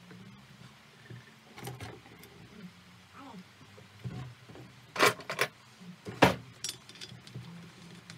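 Metallic clinks and knocks of tools and chainsaw parts being handled, with a few sharp clacks, loudest about five and six seconds in, over a low steady hum.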